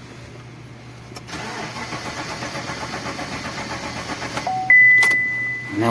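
Car engine cranking on the starter for about three seconds with an even pulsing rhythm but not catching: a no-start caused by the fuel pump delivering no fuel, which the owner puts down to a stuck fuel pump motor. Near the end a short beep, then a louder steady high-pitched beep held for about a second.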